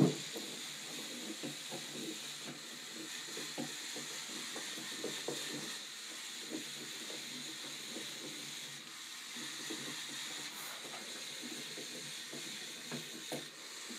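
Two small K'Nex motors drive a homemade wheeled robot, running as a steady high whir with irregular light clicks and rattles as the plastic robot moves and turns over a wooden floor. A sharper knock comes right at the start.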